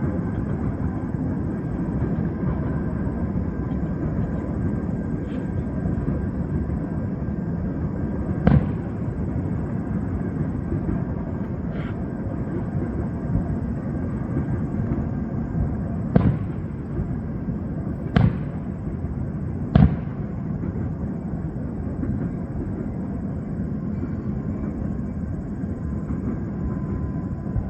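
Fireworks shells bursting with sharp, distant bangs: a couple of faint ones early, then four louder ones in the second half, the last three close together. A steady low rumble from the arriving diesel freight train runs underneath.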